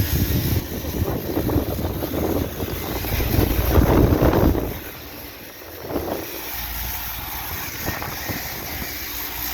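Outdoor air-conditioner condenser units running with a steady low hum. A loud rushing noise swells about three seconds in and dies away by about five seconds.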